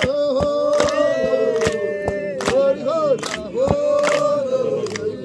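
A group of women singing a traditional Herero song together in long held notes, with sharp hand claps every half second to second. The singing fades near the end.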